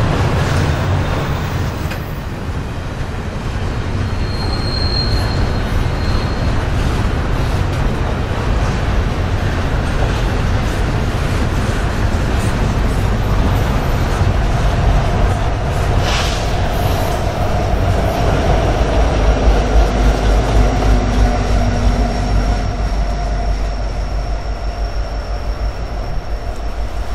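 Double-stack intermodal container train rolling by, its steel wheels clattering and briefly squealing on the rail. From about halfway through, a diesel locomotive at the rear of the train passes, adding a heavy low engine rumble that is loudest near the end, then fades as the train goes into the tunnel.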